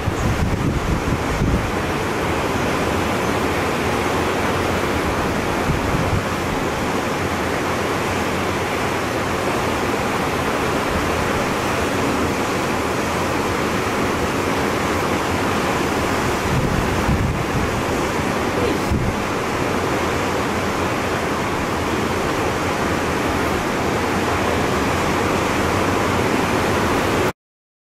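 Wind buffeting the microphone in uneven gusts over a steady rush of sea and surf; the sound cuts off abruptly near the end.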